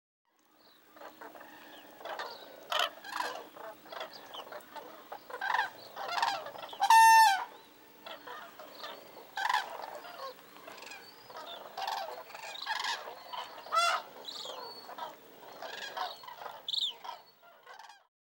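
A flock of common cranes calling: many short trumpeting calls from different birds, one after another and overlapping, with one loud, clear call about seven seconds in and another strong one near fourteen seconds.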